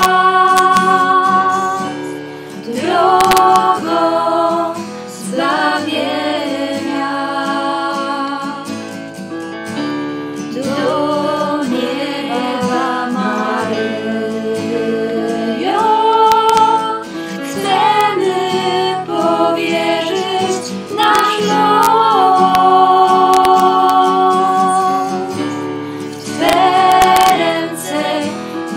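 A small group of young women singing a song together, several voices at once, in phrases with short breaths between them.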